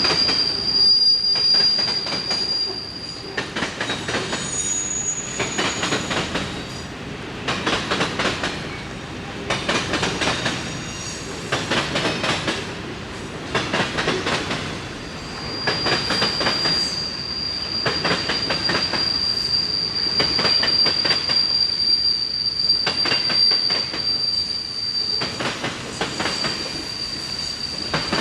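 Railroad cars rolling past, with a burst of wheel clatter over the rail about every two seconds as each car's trucks go by. A steady high-pitched wheel squeal sounds at the start and again through most of the second half.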